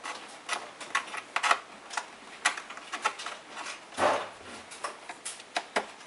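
Irregular small clicks, taps and scrapes as a USB cable's plug is felt for and pushed into a port on the back of an iMac, with a longer rustling scrape about four seconds in.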